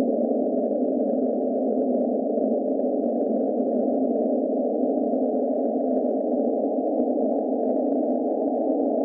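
A steady, unchanging electronic drone with a hissy, narrow, phone-line-like character that holds at one level throughout.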